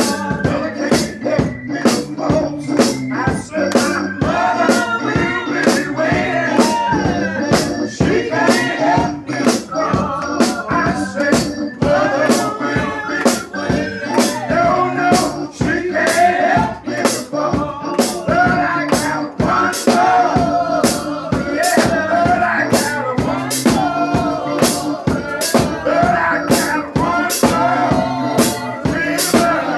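Live gospel singing: a man's voice sings into a microphone over other voices, with a steady beat of sharp hits about twice a second keeping time.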